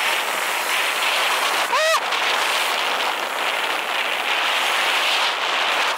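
Sur-Ron Light Bee electric dirt bike with a KO Moto motor and controller, being ridden on a dirt trail: a steady rush of wind and tyre noise, with a brief whine that rises and falls about two seconds in.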